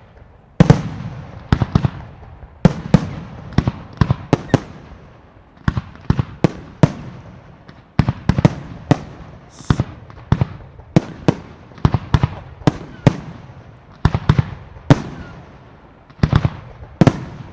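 Jorgé Fireworks aerial bursts going off in a rapid string of sharp bangs, about one to two a second, each trailing off in an echo.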